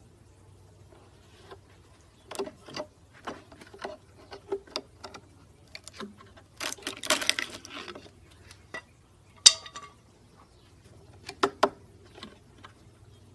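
Irregular clicks, knocks and clinks of small hard objects being handled, with a short scraping rustle about seven seconds in and one sharp, loud click about two seconds later, over a faint steady low hum.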